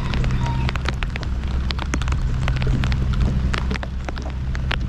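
Heavy rain falling, with drops striking close by as many irregular sharp ticks over a steady low hum.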